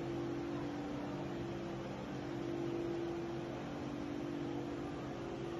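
A steady mechanical hum, several low steady tones over a background of noise.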